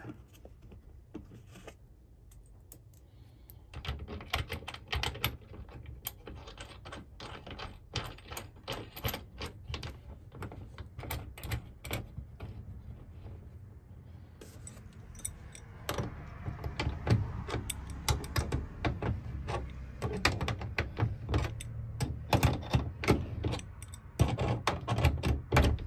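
Rapid small metallic clicks and rattles of a bolt, lock washer and steel mounting plate being worked by hand into an L-track stud fitting on aluminium track. The clicking gets thicker and louder about two-thirds of the way through, as the bolt is turned and a wrench goes onto it.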